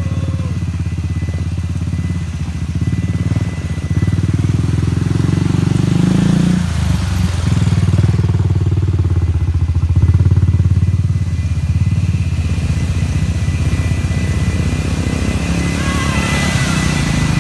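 ATV engine running loud and steady, its pitch dropping about six and a half seconds in, as the quad pushes through deep muddy water with splashing.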